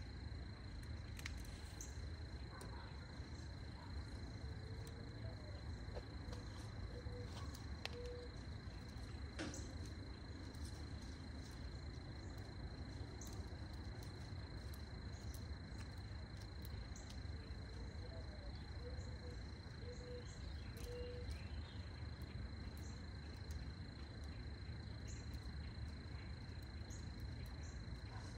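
Outdoor garden ambience: a steady high-pitched insect trill runs throughout, with scattered short bird chirps and a few short low calls in small groups. A couple of sharp clicks, from stems or pruners being handled, stand out briefly.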